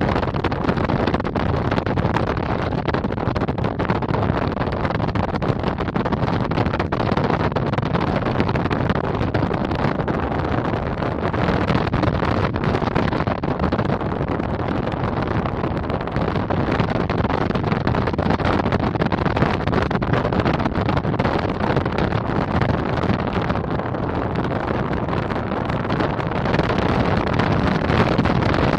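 Steady rush of wind on the microphone of a camera mounted on a hang glider in flight.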